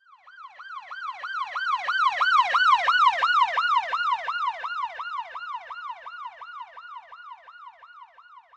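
A siren in yelp mode: a rapid, repeating rise-and-fall wail, about three sweeps a second, swelling in over the first two seconds and fading away near the end.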